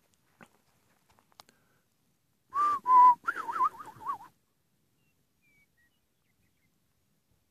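A person whistling: two short held notes, then a quick wavering warble, all over in under two seconds. A few faint clicks come before it.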